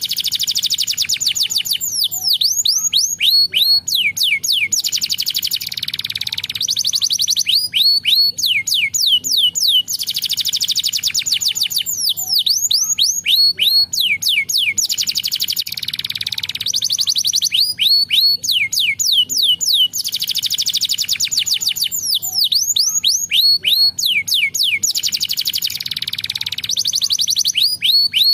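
Domestic canary singing: runs of quick falling whistled notes alternating with fast rolling trills, in long phrases repeated over and over.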